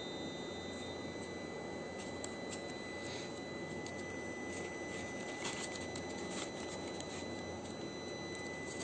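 Faint rustling and a few light clicks of paper and plastic packaging being handled, over a steady hiss and a thin, high, steady tone.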